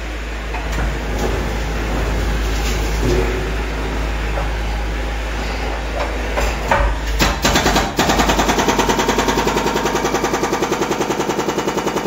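Compact track loader's diesel engine running while chunks of concrete crack and fall, with a few sharp impacts between about six and eight seconds in. From about eight seconds a rapid, evenly spaced pounding sets in, like machine-gun fire, as the loader breaks up the crumbling foundation concrete.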